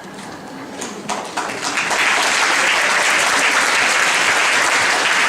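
Audience applauding, swelling over the first two seconds and then holding steady and loud.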